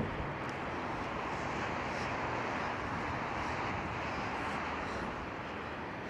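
Strong wind blowing: a steady rushing noise.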